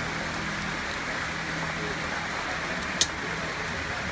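Steady frying hiss from the takoyaki-style balls cooking on the hot gas-fired pan, with one sharp click about three seconds in.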